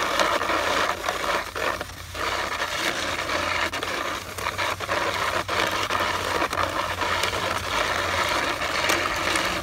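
Plastic snow-pusher shovel blade scraping along concrete as it pushes snow, with a brief break about two seconds in.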